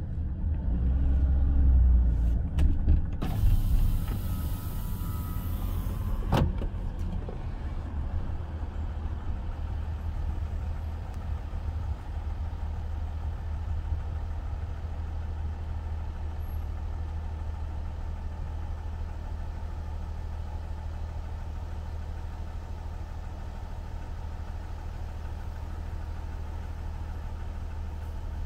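Car driving slowly, heard from inside the cabin: a steady low rumble of engine and tyres. It is louder in the first few seconds, with a few knocks and a few seconds of hiss that ends in a sharp click.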